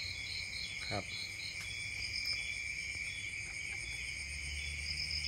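Night-time insect chorus: a steady high cricket trill, with a second insect chirping about three times a second that stops about a second and a half in. A single spoken word comes about a second in.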